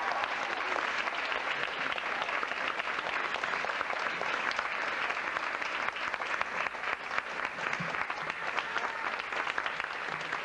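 Audience applauding, many hands clapping steadily, easing off a little in the second half.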